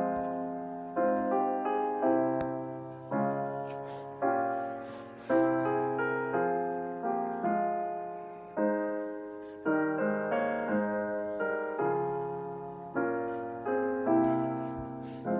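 Slow, gentle piano music: chords struck about once a second, each ringing out and fading before the next.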